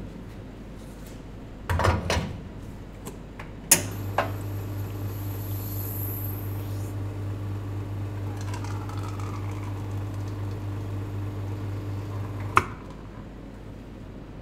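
Commercial espresso machine pulling a shot: its pump hums steadily for about nine seconds, switched on with a click about four seconds in and off with a click near the end. A brief clatter of metal about two seconds in.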